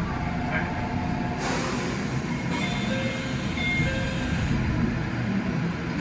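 Railway noise from an electric train standing at a station: a steady low rumble, with a short hiss about a second and a half in and a few faint tones.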